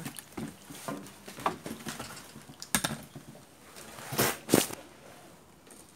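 Handling noise as a crucian carp in a landing net is lifted onto a wooden fishing platform: scattered rustles of the net mesh and small clicks, a sharp click almost three seconds in, and two louder scuffs a little after four seconds.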